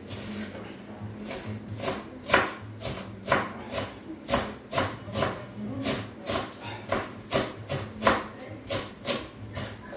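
Kitchen knife chopping fresh herbs (cheiro verde) on a wooden cutting board, in steady strokes about three a second, starting about a second in.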